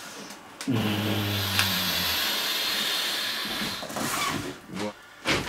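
Cardboard scraping and sliding as a boxed RC crawler truck is drawn out of its box, a steady rough rubbing that lasts about three seconds and then stops.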